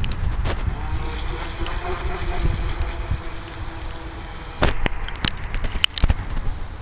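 Wind buffeting the microphone with a faint steady whine for the first few seconds, then a handful of sharp clicks and knocks near the end.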